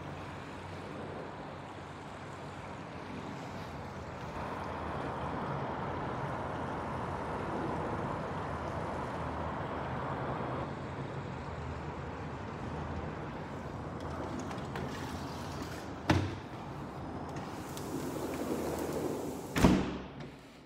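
Steady outdoor background rush of open air. A sharp knock comes about 16 seconds in, and near the end a balcony door with a lever handle is pushed shut with a loud thud, the loudest sound.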